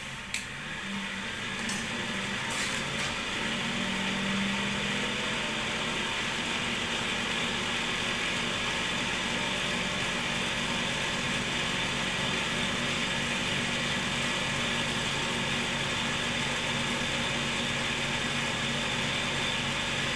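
Cotton candy machine's DC motor running steadily, its spinner head whirring at a constant speed. A single sharp click about half a second in.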